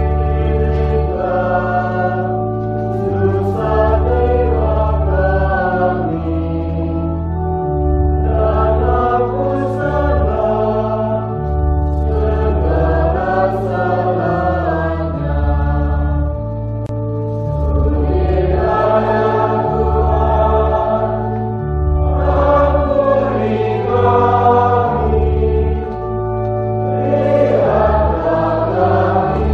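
Choir singing a hymn over an instrumental accompaniment, whose held bass notes change every second or two.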